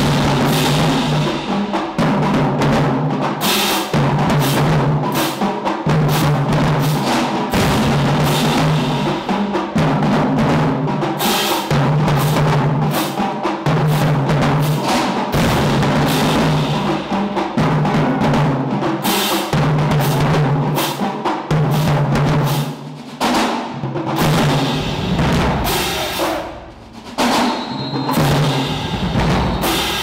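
Marching band drumline of Dynasty snare drums and bass drums playing a loud, driving cadence, with a repeating low note under the rapid snare strokes. Near the end the playing breaks up with a few short pauses.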